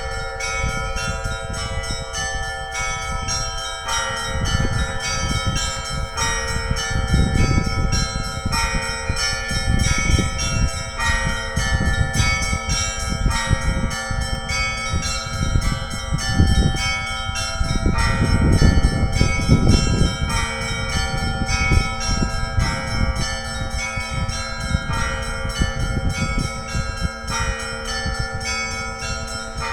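Russian Orthodox church bells rung together in a continuous peal, several bells of different pitches struck over and over and ringing on into each other.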